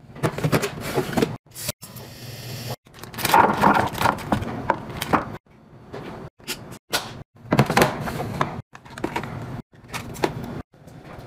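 Plastic food containers and yogurt cups being set into a refrigerator drawer, with knocks, clatter and rustling. It comes in short stretches that cut off suddenly several times.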